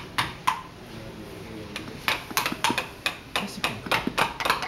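Wooden mallet striking carving chisels into wood: sharp, irregular knocks, two early on, then a quick run of taps, several a second, from about two seconds in.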